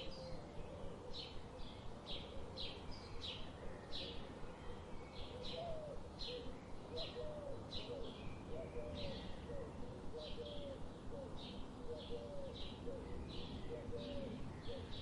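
Birds chirping: short high chirps repeat about one to two times a second. From about five seconds in, a run of lower, hooked call notes joins them, over a steady faint background hiss.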